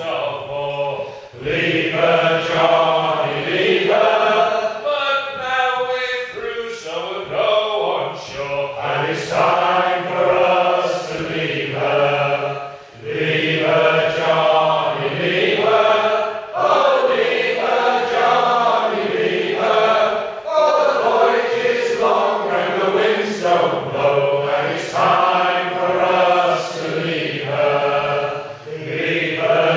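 Men's shanty group singing a sea shanty together, unaccompanied, in a reverberant hall.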